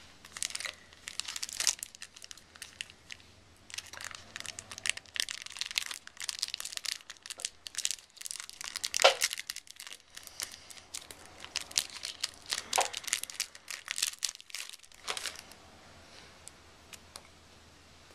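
Candy wrapper being crinkled and torn open, a dense run of sharp crackles that stops about fifteen seconds in.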